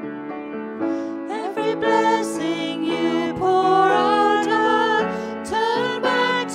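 Church worship band performing a contemporary worship song: grand piano chords, with singers joining in after about a second and a half and singing the next verse over the piano.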